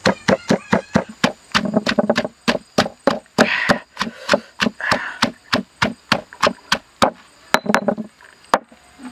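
A pestle pounding fresh red chilies in a stone mortar, with quick steady strokes about five a second and a wet squelch of crushed chili between them. The pounding stops near the end.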